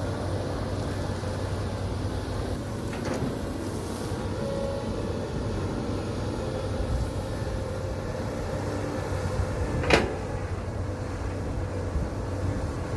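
CAT 320D long-arm excavator's diesel engine running steadily while the machine digs. A single sharp clank, the loudest sound, comes about ten seconds in, with a fainter knock about three seconds in.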